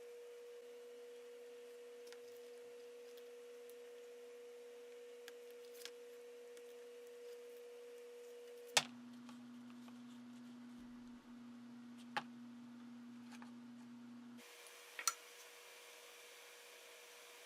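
Quiet room tone with a steady electrical hum and a few sharp clicks or taps. The hum changes abruptly twice.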